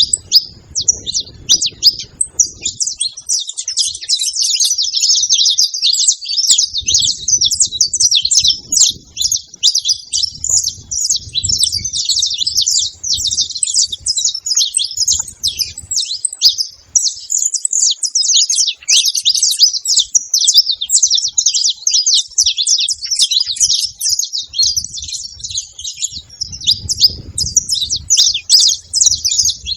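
Saffron finches chirping and singing together, a dense, unbroken run of rapid high notes, with a faint low rumble now and then underneath.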